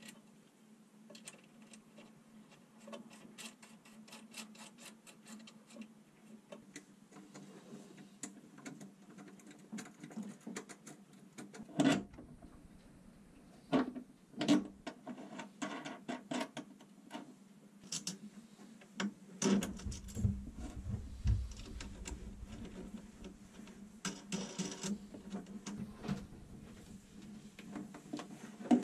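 Irregular clicks, clinks and knocks of hands working heavy battery cables with metal lugs onto terminals, over a steady low hum. A few louder knocks come about midway, and a low rumble a little later.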